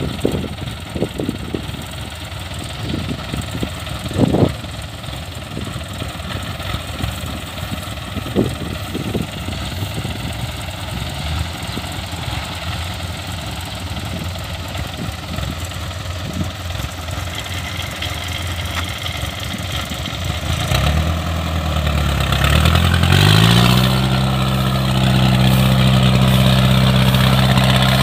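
A rice combine harvester's diesel engine running with mechanical clatter and a few knocks. About 21 seconds in, its pitch dips and then climbs as it speeds up, then holds steady, louder, at working speed.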